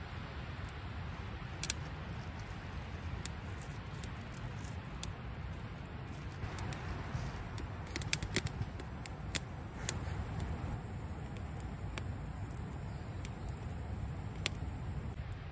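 Small wood fire of damp twigs crackling as it catches, with irregular sharp snaps and pops, several close together about 8 seconds in, over a steady low wind rumble.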